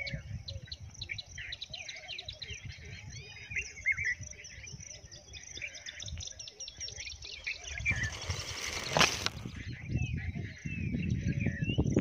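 Many small birds chirping and calling together, with a low irregular rumble underneath. About eight seconds in, a brief rush of hiss ends in a sharp click.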